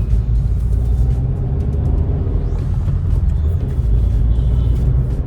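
Cabin noise inside a Honda Elevate driving in city traffic: a steady low rumble of engine and road heard from inside the car.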